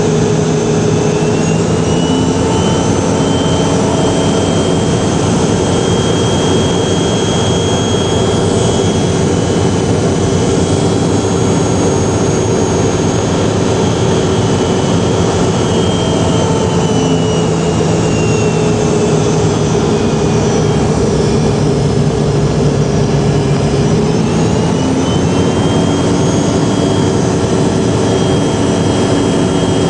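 Jet airliner engines heard from inside the cabin during the landing approach: a steady loud rush with a high whine that rises early on, drops away in the middle and climbs again near the end as engine power changes.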